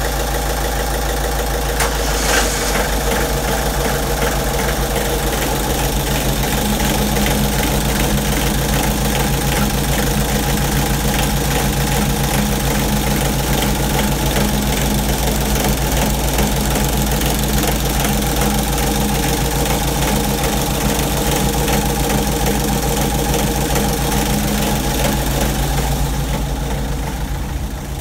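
Inboard diesel engine of an Akerboom 38 motor boat idling steadily just after starting. It is a little fainter near the end.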